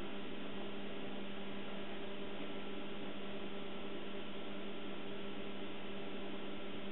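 Steady low hum with a constant hiss, unchanging throughout; no distinct handling sounds stand out.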